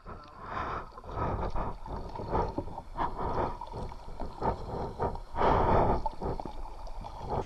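Kayak paddle strokes dipping and pulling through the water, with water splashing and gurgling against the plastic hull, coming in uneven swells about once a second; the biggest is about five and a half seconds in.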